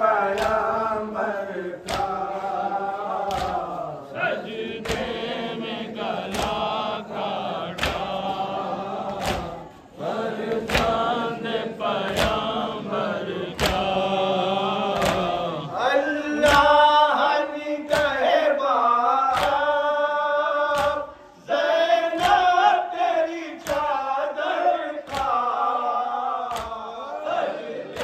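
A nauha, a Shia Muharram lament, chanted by men's voices, with sharp slaps of hands striking chests (matam) keeping a steady beat about once a second.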